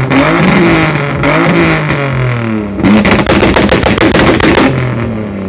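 Turbocharged BMW E36's 2.5-litre M20 straight-six revved hard and repeatedly on the spot. About three seconds in, it breaks into a rapid machine-gun volley of exhaust bangs from the launch-control anti-lag, lasting about two seconds, before the revs fall back.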